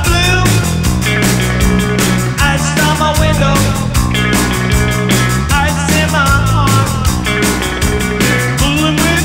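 Live rock band playing amplified: two electric guitars, electric bass and a drum kit, with a steady drum beat.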